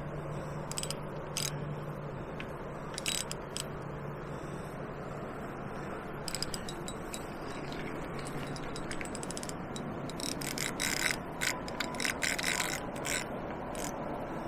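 Shimano Exage spinning reel clicking while a hooked barbel is played on a bent rod. Single clicks come every second or two, then a dense run of clicks about ten seconds in.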